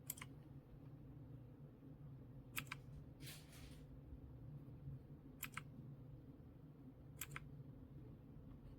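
Single key presses on a TMKB T61SE mechanical keyboard with red switches, each a quick double click, four of them a couple of seconds apart, over a faint low hum. A short soft rustle about three seconds in.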